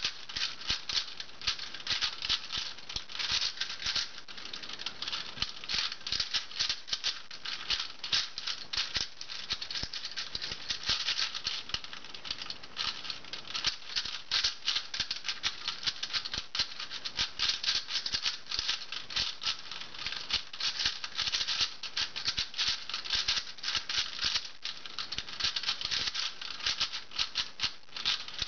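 Shengshou v3 4x4 speedcube being turned rapidly by hand: a continuous, fast clatter of plastic layers clicking and rattling.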